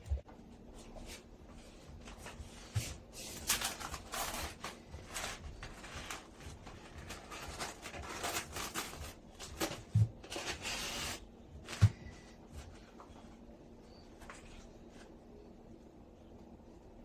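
Rustling and scraping handling noises, densest in the middle, with a couple of soft low knocks.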